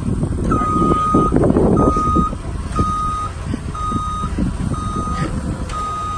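Forklift backup alarm beeping about once a second, six even single-tone beeps, over the forklift's engine running, which is louder for a moment about a second in.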